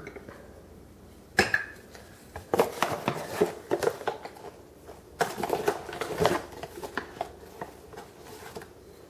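A plastic measuring cup scooping flour from a paper bag: a knock about a second and a half in, then two spells of crackly rustling and scraping as the cup digs into the flour and rubs the bag's paper, with scattered small clicks after.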